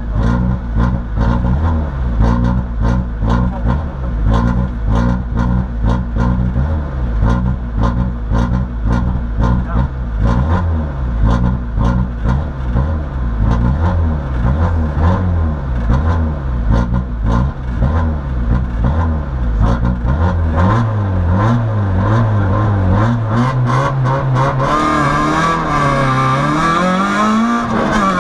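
Peugeot 106 rally car's engine heard from inside the cabin: running at low revs with small throttle blips and a rapid clatter while the car waits at the stage start. About twenty seconds in the revs step up, and near the end the car launches and the engine revs up steeply under hard acceleration.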